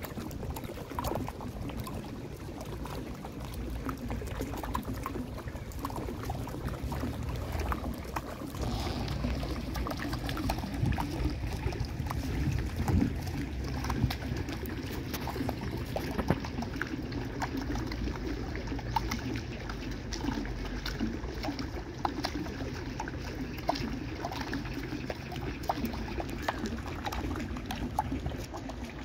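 Water flowing down a stone cascade fountain: a steady pouring and trickling, dotted with small splashes. The splashing gets brighter about nine seconds in.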